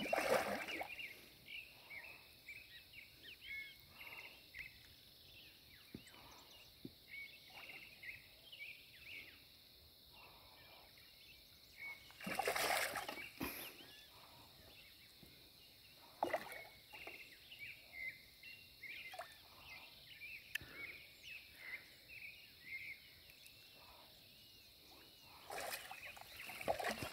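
A hooked fish splashing and thrashing at the water's surface, with another loud splash about halfway through and a smaller one near the end. Between the splashes, birds chirp over quiet outdoor background.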